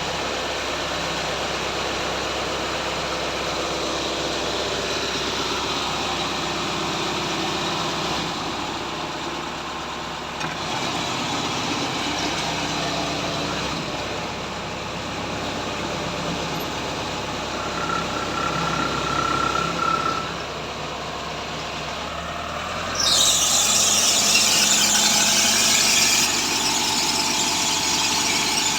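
Horizontal directional drilling machine running steadily, with squealing. A brief high tone comes about 18 seconds in, and a loud hiss starts suddenly about 23 seconds in and carries on.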